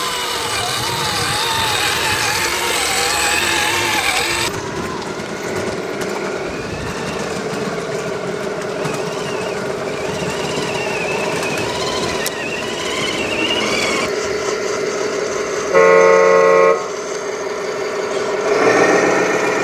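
Small electric motors of RC crawlers whining, their pitch wavering up and down with the throttle and changing abruptly twice. A short horn toot lasting about a second sounds near the end, typical of a model truck's sound module.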